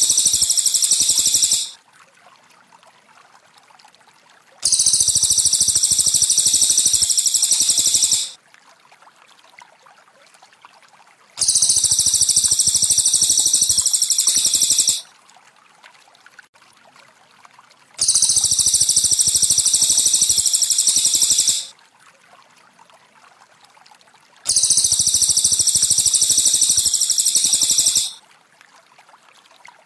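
Looped cililin bird song for masteran: bursts of dense, very high-pitched chirping, each about three and a half seconds long and repeating every six and a half seconds or so, with quiet gaps between. Faint trickling water runs underneath.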